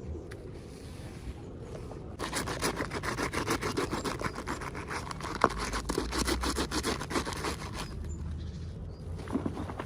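Toy packaging being handled and opened: a run of rapid crinkling and scraping starting about two seconds in and stopping a couple of seconds before the end, with one sharper click partway through and a brief rustle near the end.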